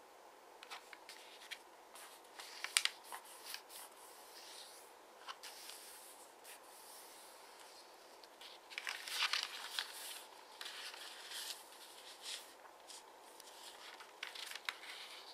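A 15 cm sheet of double-sided origami paper being folded, creased and unfolded by hand: scattered rustles and crinkles with a few crisp snaps, the loudest stretch about nine seconds in.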